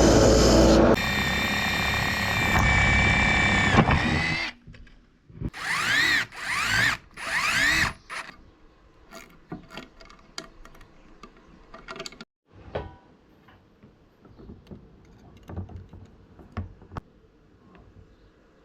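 A power drill runs for the first few seconds, then three short spins about a second apart, each rising in pitch. After that come scattered light clicks and knocks of tools and hardware being handled.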